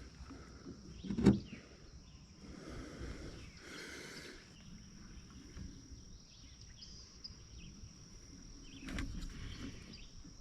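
Quiet hand-work noises: a sharp click about a second in, soft rustling and a few small knocks near the end, as a new fuel line is worked onto a string trimmer. A steady high insect trill sounds throughout.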